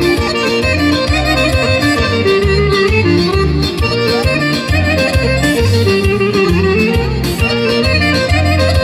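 Amplified live Bulgarian folk horo dance music from a stage band, with a keyboard-led melody over a steady, repeating bass beat.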